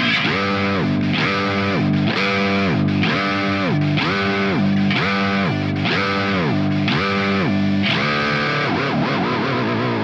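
Electric bass (Cort GB75JH) played through a first-generation Digitech Bass Whammy pitch shifter, its expression pedal rocked so each note swoops up in pitch, holds, and slides back down, about once a second. Near the end the sweeps give way to a wavering note.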